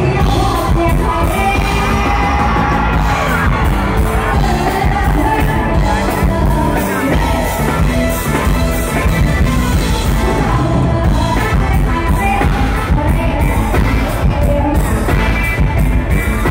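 Live band music with a singer over a steady, heavy drum beat, played loud through a stage sound system.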